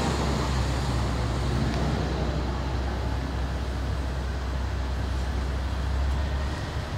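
A vehicle engine idling: a steady low rumble with no change in speed.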